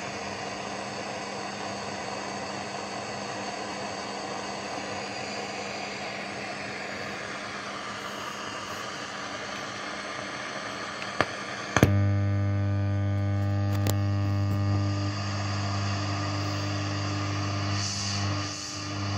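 Valve AM radio receiver hissing with static; about twelve seconds in there is a click, the hiss drops back and a louder, steady buzzing hum with many overtones takes over as the homemade transmitter's carrier is picked up. The hum dips briefly near the end as the receiver's knob is turned.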